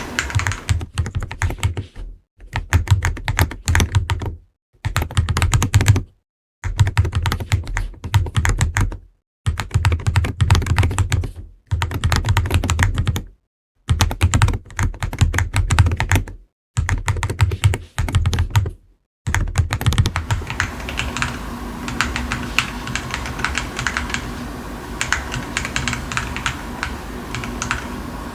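Fast typing on a Wooting 80HE keyboard fitted with TTC Flip King of Magnetic (KOM) magnetic switches, stock polycarbonate plate and PBT Cherry-profile keycaps: a dense run of clacky keystrokes. For the first two-thirds the typing comes in short stretches broken by sudden silent gaps, then runs on unbroken.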